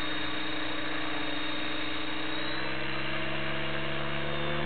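Align T-Rex 600 RC helicopter turning its rotors on the ground, a steady whirring drone. From about halfway through its pitch rises slowly and it gets a little louder near the end as the rotor head speeds up.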